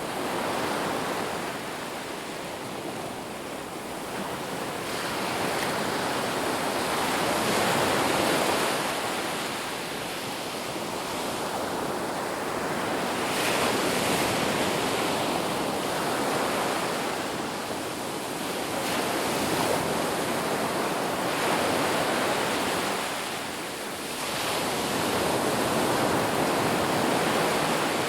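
Ocean surf: waves washing in, the rush of water swelling and falling away about every five to six seconds.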